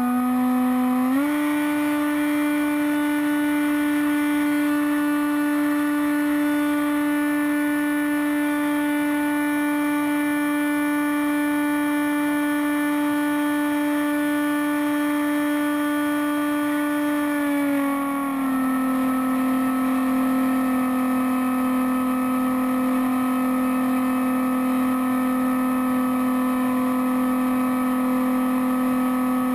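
Brushless electric motor and pusher propeller of a Bixler foam RC plane, heard from its onboard camera: a steady whine that steps up in pitch about a second in as the throttle is advanced, holds, then drops back a little just past halfway as the throttle eases.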